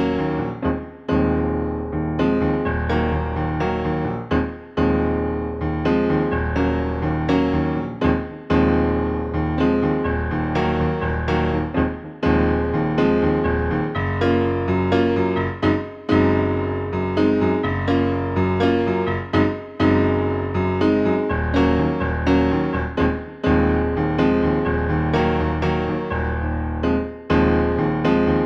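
Kurzweil KA90 digital piano played in a piano voice: chords struck every second or two over held low bass notes.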